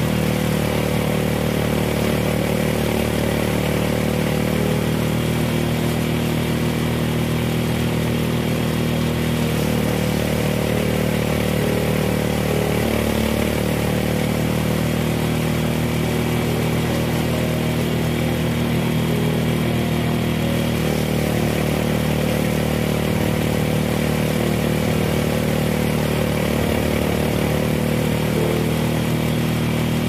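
Small engine of a rice harvester running steadily at an even speed.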